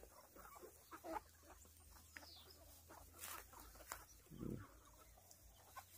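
Mostly quiet, with a few faint, scattered clucks from free-range chickens.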